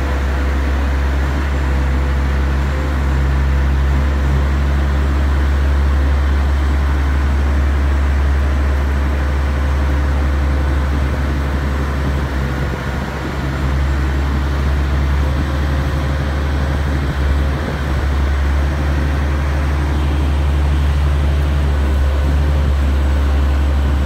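Diesel power pack of a self-propelled modular transporter running steadily under load as the multi-axle trailer carries a barge hull, a deep engine drone with a steady hum above it.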